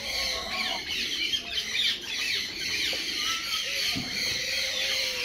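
Birds calling: a dense run of high, quick chirps throughout, with a few lower squawking calls from domestic geese and ducks. A single knock about four seconds in.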